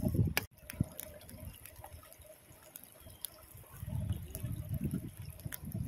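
A small fire of dry bamboo and palm leaves being fed and starting to catch, with scattered sharp crackles and a soft rumble of flame later on, over the trickle of a shallow stream.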